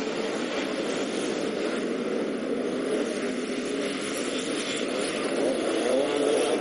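A pack of enduro dirt bikes accelerating off the start line together, many engines revving at once in one dense, steady sound that grows a little louder near the end.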